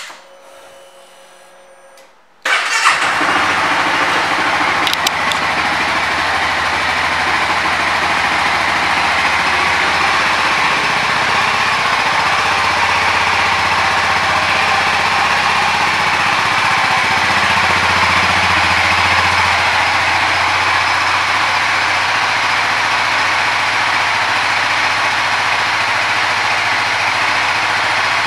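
Honda CBR300R's single-cylinder engine starts about two and a half seconds in, after a quiet moment, and then idles steadily.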